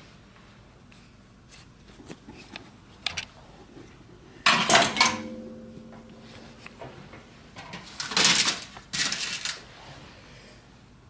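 Metal tools clattering on a hard work surface. There are light clicks, then a loud clatter about four and a half seconds in that rings briefly, and two more clatters around eight and nine seconds.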